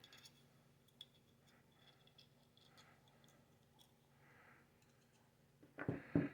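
Faint clicks and handling noises of small metal rifle-bolt parts being fitted by hand, with a few light clicks at the start and about a second in.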